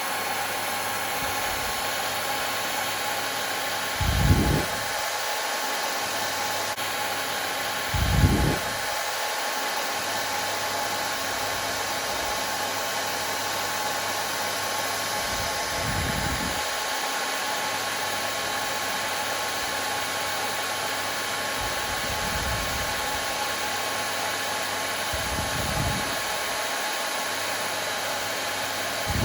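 Hair dryer running continuously, a steady even whir with a faint steady hum in it. A few dull low thumps come through every few seconds, the loudest about four and eight seconds in.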